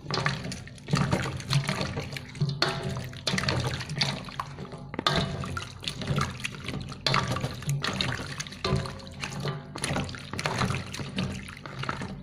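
Papaya slices being stirred by a gloved hand in a basin of water: irregular sloshing and splashing.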